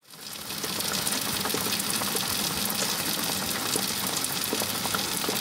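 A steady crackling, sizzling hiss, a sound effect laid under the title card, fading in over about the first second.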